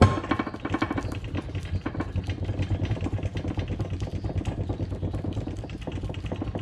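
Grinder running and grinding steel, a rough, rapidly pulsing grind that starts abruptly. It is smoothing a raised, rough spot on a rebuilt excavator track adjuster part so it will slide through its bush.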